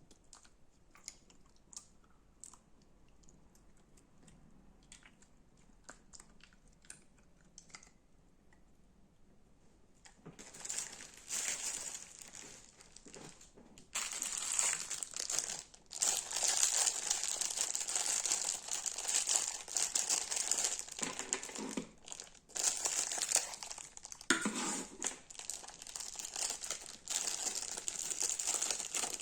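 Slime being squeezed and stretched by hand, crackling and popping. The first ten seconds hold only a few faint clicks; the crackling starts about ten seconds in and gets much louder a few seconds later.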